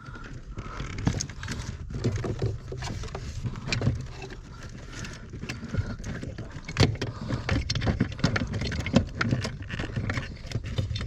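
Hand work on a car's pedal assembly: irregular metallic clicks, knocks and rattles as the clutch pedal's return spring mechanism is worked loose.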